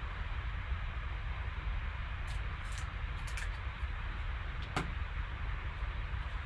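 Steady low hum and hiss of background noise, with a few faint short rustles and a click from trading cards being handled.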